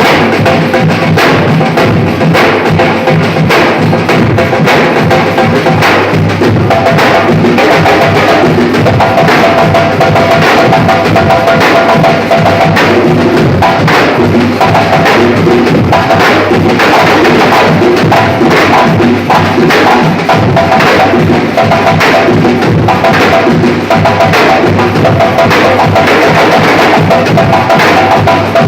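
Batucada ensemble of Brazilian samba drums playing together. Deep bass drums, snare-like drums and sharp wood-block-like strikes keep up a dense, steady rhythm at full volume.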